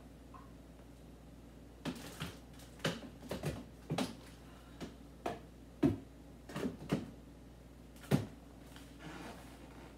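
Food containers knocking and clicking as they are handled and set into an open refrigerator: about a dozen light knocks, irregularly spaced, starting about two seconds in.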